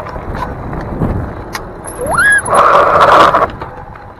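Wind rushing over the microphone of a moving e-bike. About two seconds in there is a short rising squeal, followed at once by a loud, harsh burst of noise that lasts about a second.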